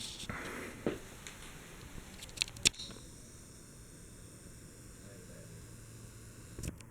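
Ceiling fan running with a faint steady motor hum. A few sharp clicks come about a second in and twice more around two and a half seconds in.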